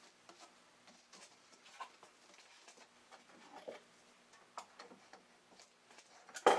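Faint, scattered ticks and light taps as a pneumatic staple gun and thin wood fascia are handled against the layout's edge, with no staple fired; a sudden loud knock right at the end.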